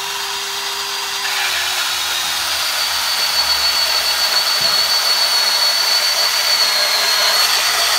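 DeWalt DCS371 20-volt cordless band saw running and cutting through quarter-inch steel angle iron, a steady high whine with metal grinding. It gets louder a little over a second in as the blade bites into the steel.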